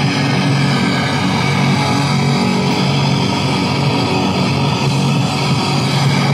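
Loud rock music with electric guitar playing steadily.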